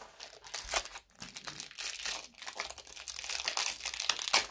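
Thin plastic trading-card wrapper crinkling as it is handled and opened and the cards are drawn out, in quick irregular crackles.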